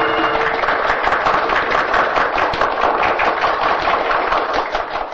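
Audience applauding, a dense, fast clatter of hand claps. The band's last held chord dies away under it in the first half-second.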